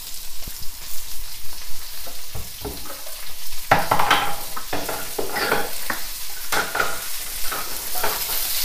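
Onion, spring onion, garlic and ginger sizzling in hot oil in a wok, with a wooden spatula scraping and knocking against the wok at irregular moments as they are stir-fried.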